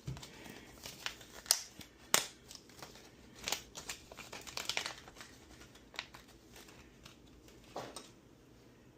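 Light clicks and taps with some crinkling rustle, from small electronic parts being handled and pulled out by hand; the loudest taps come about two seconds in and again near the end.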